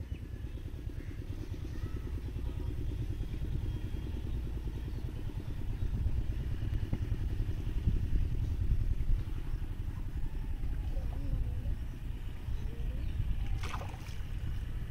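A motor engine running, with rapid low pulsing that grows louder over the first several seconds. Near the end comes a short splash as a hooked fish breaks the surface.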